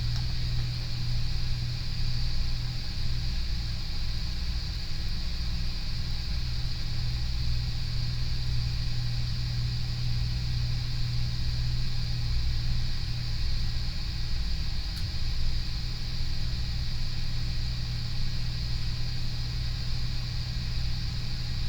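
Hot air rework station running: a steady blower hum with an airy hiss, as heat is applied to desolder a chip on the SSD board.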